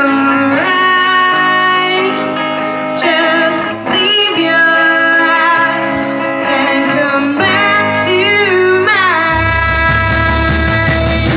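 Live rock band playing with a woman singing lead over electric guitar, her held notes wavering with vibrato and sliding between pitches. About nine seconds in, a loud low bass part comes in under the voice.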